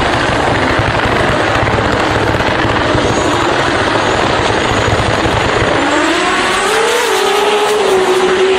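Tuned performance car engine on a two-step launch limiter, firing a dense rapid run of pops and bangs from the exhaust. About six seconds in, the pitch rises and then holds steady as the engine revs.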